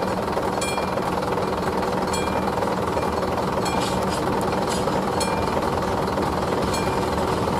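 Railway level crossing's classic electric warning bell ringing continuously in a fast, even rattle, while a slow shunting move of empty open freight wagons rolls over the crossing. A few sharp clicks from the wagons come about four to five seconds in.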